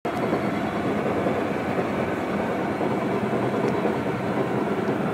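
Caterpillar D8T bulldozer's diesel engine running steadily, heard from inside the operator's cab.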